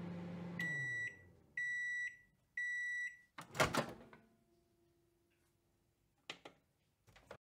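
Microwave oven hum that cuts off about half a second in, then three half-second beeps as the timer reaches zero, followed by a louder clunk of the door opening and a couple of faint clicks.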